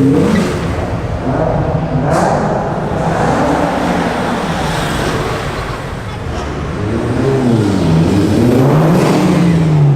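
Car engine running loudly and being revved, its pitch rising and falling, with a rev climbing and then dropping away near the end.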